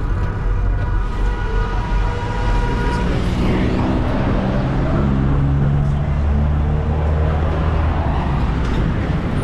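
Matatu minibus driving, its engine and road noise heard from inside the cabin.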